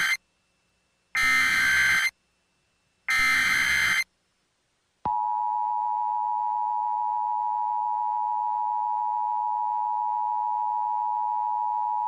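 Emergency Alert System tones: the end of one harsh screeching SAME header data burst and two more, each about a second long with a second's gap between them, then, about five seconds in, the steady two-tone EAS attention signal sounding without a break.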